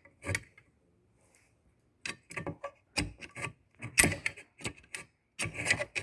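Sharp metallic clicks and taps from a loose washer at the bottom of an Audi A8 D4 front air strut being worked with a long screwdriver: one tap near the start, then a run of clicks from about two seconds in. The play in this washer is the cause of the strut's knock.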